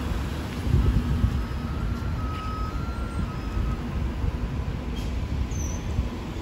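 Street traffic: car and diesel bus engines running as a queue of vehicles creeps along, heard as a steady low rumble. A faint thin whine comes and goes in the first half.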